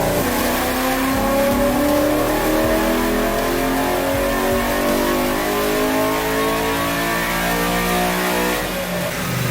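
LS V8 engine with a high-ram intake manifold at full throttle on a chassis dyno, revs climbing steadily for about eight and a half seconds, then dropping off near the end as the throttle is released: a dyno pull.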